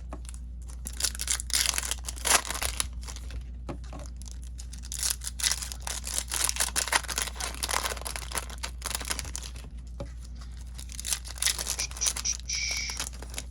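Trading-card pack wrappers of 2020 Topps Chrome packs being torn open and crinkled, with irregular crackling rips and rustles throughout. A short electronic beep sounds near the end.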